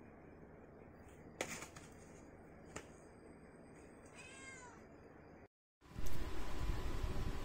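A white-and-tabby domestic cat gives one short meow a little past four seconds in, after a couple of soft knocks. After a brief dropout, a louder steady low background noise begins.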